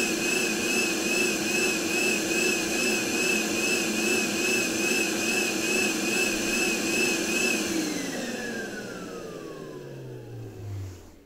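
NOVETE VT-DH003 handheld vacuum cleaner running with a steady high whine that wavers slightly a few times a second. About seven and a half seconds in, the motor is switched off and winds down, its whine falling in pitch and fading out.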